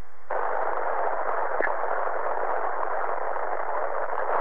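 Steady FM radio static: a rush of hiss opens abruptly about a third of a second in, the open channel carrying no signal yet from the space station, which has not yet come through loud and clear.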